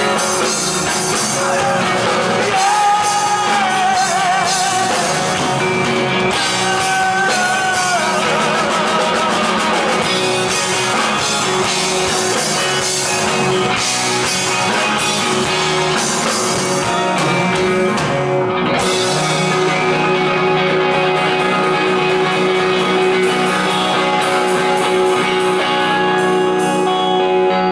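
Live rock band playing with electric guitars, bass and drums, with singing. About two-thirds of the way through, the cymbals drop out and the band holds a long ringing chord.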